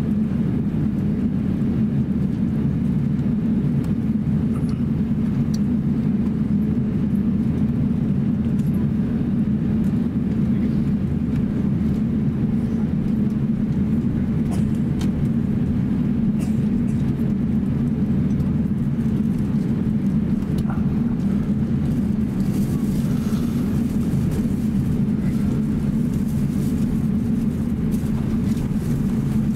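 Cabin noise inside an Airbus A350-900 taxiing: a steady low hum and rumble from its Rolls-Royce Trent XWB engines at taxi power, with a few faint ticks.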